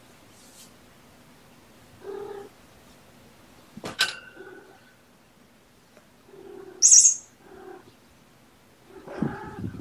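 A cat meowing several times in short separate calls. There is a sharp click about four seconds in, and a brief loud hissing noise about seven seconds in.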